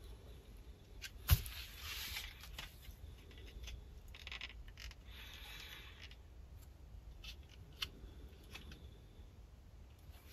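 LEGO car doors being opened by hand: a sharp plastic click about a second in, then soft rubbing of fingers on the bricks and a few fainter clicks of the hinged pieces.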